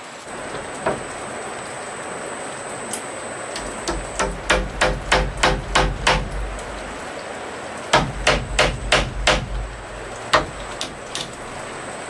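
Hammer blows on an overhead wooden roof beam. Two quick runs of strikes, about four a second, come about four seconds in and again about eight seconds in, with a few single blows around them.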